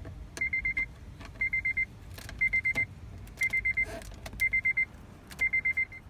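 Car warning chime beeping in quick groups of four high beeps, about once a second, with a few sharp clicks from work on the dashboard in between.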